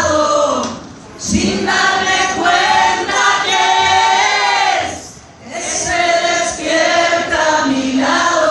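Concert crowd singing a Spanish-language song together with the singer in long phrases, breaking off briefly twice, about a second in and again past the middle.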